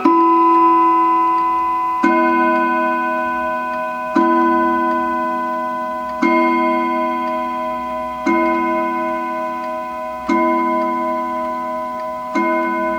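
Wuba three-train German pendulum clock with a Franz Hermle movement striking the hour: a single ringing chime stroke repeated at an even pace of about one every two seconds, each stroke fading before the next, with the clock ticking underneath.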